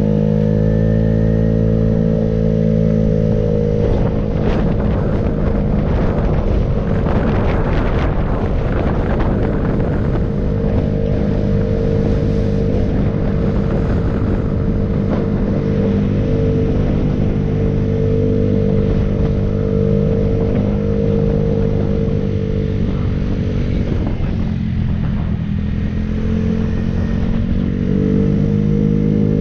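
A motorcycle engine running at a steady cruising pitch, with wind and road rumble over it. A little after twenty seconds in, the engine note falls as it slows, then rises again near the end.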